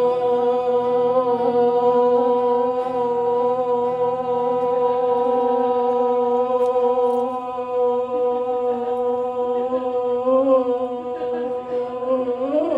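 A singer's voice holding one long steady note for about twelve seconds as the song's final line closes, wavering slightly near the end before it breaks off.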